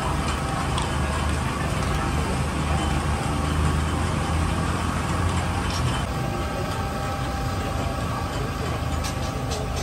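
Steady low engine hum over busy outdoor-market noise, easing about six seconds in, with a few faint clicks near the end.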